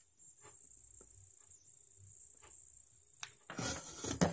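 A cardboard parcel being handled and cut open: a few faint taps, then a louder rustle and scrape of cardboard near the end. A steady, faint, high-pitched whine runs underneath.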